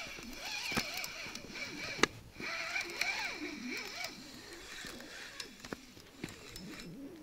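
A spinning reel and rod handled in the dark while a hooked fish is played, giving scattered clicks and knocks with one sharp knock about two seconds in, over a background of frogs and insects calling.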